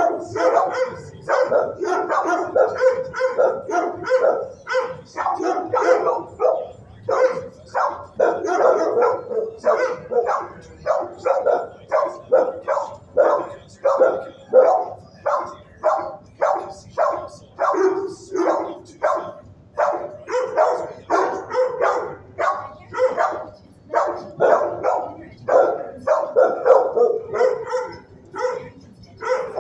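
Shelter dogs barking over and over, about two barks a second without a break, several barking at once in places.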